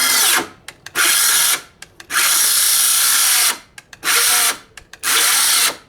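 DeWalt 12V XTREME brushless cordless circular saw cutting into a 2x4 in four short bursts, stopping between each. The saw is struggling through the cut because the knockoff battery doesn't have much power.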